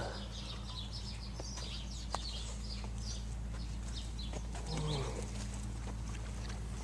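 Birds chirping repeatedly over a steady low hum in a farmyard, with one short, low animal call about five seconds in and a single click around two seconds.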